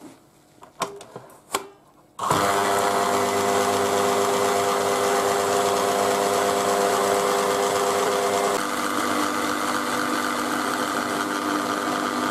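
A few light clicks, then about two seconds in an electric mixer starts suddenly and runs steadily, its twin beaters whipping eggs and sugar in a stainless steel bowl until they double in volume. Its tone drops slightly about eight and a half seconds in.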